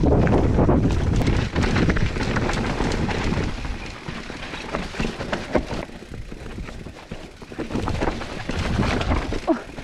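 Mountain bike descending a rough downhill trail: wind buffets the microphone, tyres roll over rough ground, and the bike rattles and knocks over bumps. The wind rumble is strongest for the first few seconds, then eases, leaving scattered clicks and knocks.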